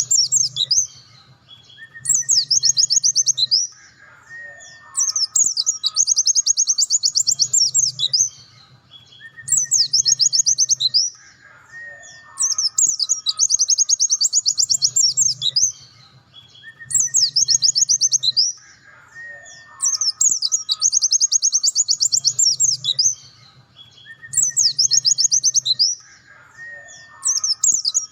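A pleci dakun white-eye singing: fast, high, rattling trills in phrases of one to three seconds with short pauses between them, the same sequence recurring about every seven seconds as a looped recording.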